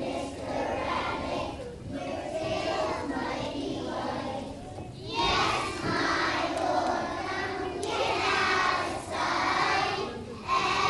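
A large group of young children singing together, growing louder about halfway through.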